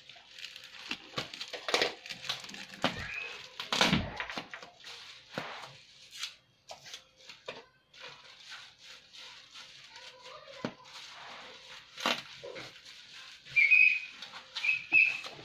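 Black bubble-wrap packaging crinkling and crackling as hands pull and tear at it to open a heavily taped parcel, with a low thump about four seconds in. Near the end come several short high squeaks, the loudest sounds here.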